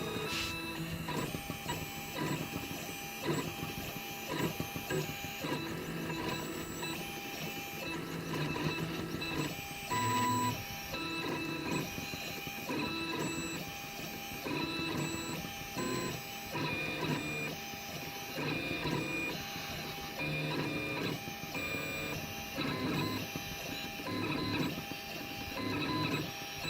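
3D printer's stepper motors running as it works as a pen plotter, a whine whose pitch shifts every second or so as the moves change speed and direction.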